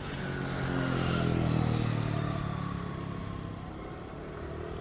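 A motor vehicle passing by: its engine grows to its loudest about a second and a half in, then fades away as its pitch falls.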